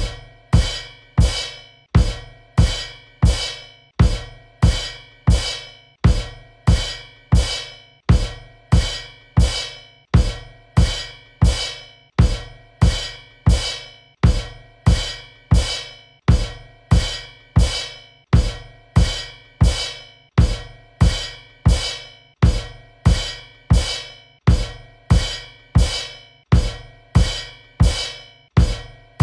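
Cymbal kicks: a drum kit's bass drum and crash cymbal struck together, repeated over and over at an even pace, each hit ringing and fading before the next.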